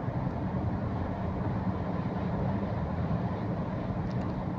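Steady low rumble of a moving vehicle, with an even hum.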